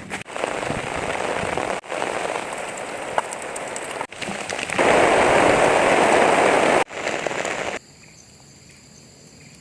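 Heavy rain pouring, broken into short stretches whose loudness changes abruptly at each cut, loudest from about five to seven seconds in. Near the end it drops to a much quieter hiss.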